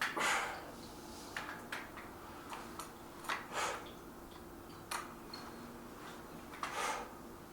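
A person exhaling hard about every three seconds while doing dumbbell reps, with small sharp clicks and clinks of the weights in between. A faint steady hum runs underneath.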